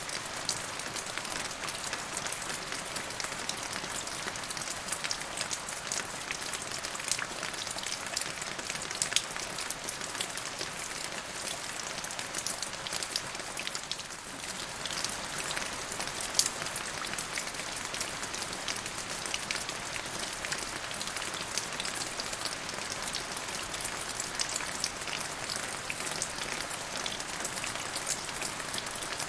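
Steady rain falling, a continuous hiss with many individual drops pattering on a surface.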